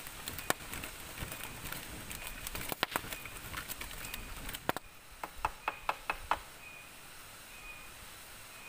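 Small wood campfire crackling, with sharp irregular pops and snaps over a steady hiss while it is fanned with a leaf; the pops stop about six and a half seconds in, leaving only the hiss. A faint short high chirp repeats every second or so.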